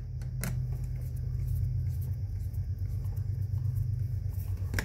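A steady low hum, with a couple of faint clicks as a screwdriver tightens a terminal screw on a four-way wall switch.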